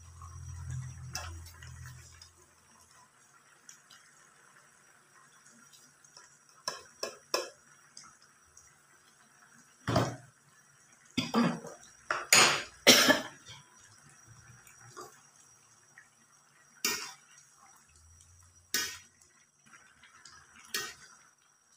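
A metal spoon and ladle clink and knock against a metal wok while salt is added and a curry is stirred: a string of separate sharp clinks, loudest and closest together about halfway through.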